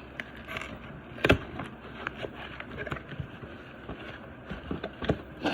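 A cardboard parcel and its packaging being handled and unpacked: irregular rustling with scattered light clicks and knocks, a sharper knock about a second in.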